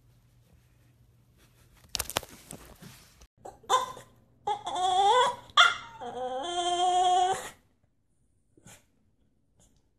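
French bulldog puppy whining and yowling in about four calls that waver up and down in pitch, the last one held longest.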